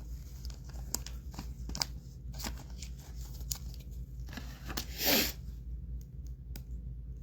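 Trading cards and their packaging being handled at close range: scattered small clicks and rustles, with one louder, brief rustle about five seconds in.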